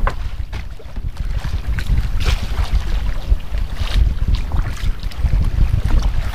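Wind buffeting the microphone in a loud, uneven rumble, over waves lapping and splashing against the hull of a small outrigger boat.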